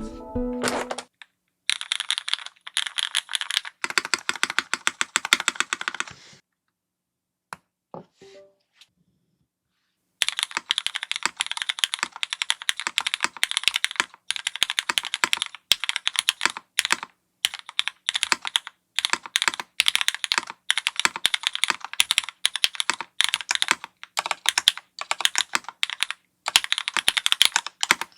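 Fast typing on a Keycult No.2 TKL custom mechanical keyboard built clacky with an aluminium plate and no foam, with lubed Cherry MX2A Black switches under GMK keycaps: rapid key clicks and clacks. There is a short burst, a pause of a few seconds, then steady continuous typing.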